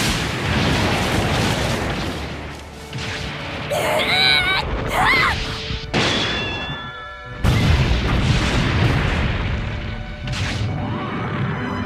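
Animated giant-robot battle sound effects: heavy booms and crashes of metal weapons clashing, over orchestral music. About four and five seconds in come two short, shrill cries that slide up and down in pitch.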